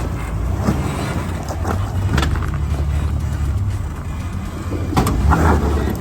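Off-road vehicle's engine running in a low steady rumble as it crawls up a rock obstacle, with a few sharp knocks, the loudest about five seconds in.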